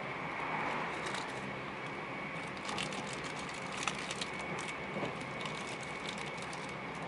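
Running noise of a Meitetsu μSKY electric train at speed, heard from inside the passenger car: a steady rumble and hiss with a thin steady high whine. About two and a half seconds in, a run of sharp clicks and clatter lasts for a few seconds.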